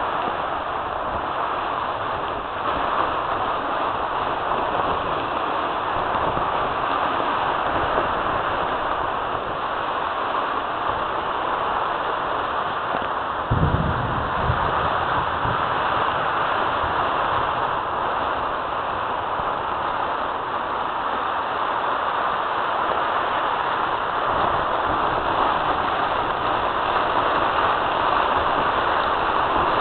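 Steady rushing of fast-flowing floodwater, with a brief low rumble about halfway through.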